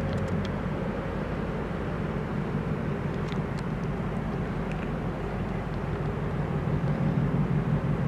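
Steady low rumble with a droning hum, typical of a large ship's engines and machinery heard across the water, with a few faint high chirps over it.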